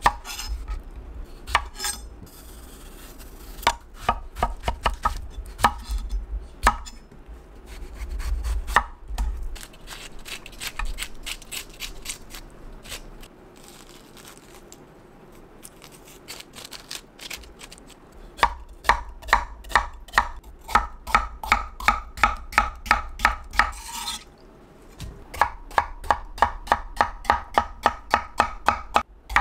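Chef's knife cutting a peeled old cucumber on an end-grain wooden cutting board. First come a few scattered cuts, then a quieter stretch of a spoon scraping out the seeds. After that, two runs of steady chopping at about three strokes a second, with a short break between them.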